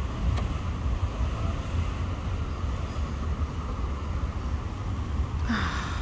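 Steady hum of city road traffic with a low rumble, and one short noise about five and a half seconds in.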